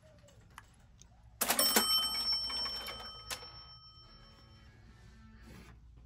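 A bright bell-like chime, an edited-in sound effect, struck once about a second and a half in and ringing out for about three seconds, with a sharp click partway through.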